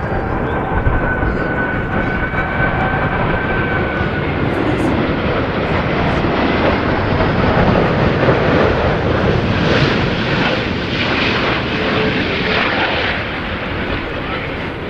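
Airbus A380-841 on final approach with landing gear down, its four Rolls-Royce Trent 970 turbofans passing close. A steady jet roar carries a high whine that slides slightly lower over the first few seconds; the noise builds to its loudest about eight seconds in, then eases.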